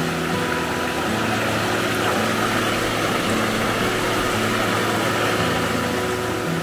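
Background music of held notes over the steady rush of river water running over rocks.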